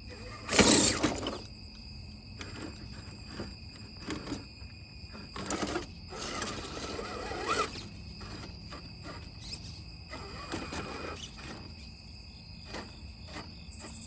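1:10 scale RC rock crawler's electric motor and drivetrain whirring in short throttle bursts as it climbs stone steps, with its tyres scraping and knocking on the stone; the loudest burst comes about half a second in.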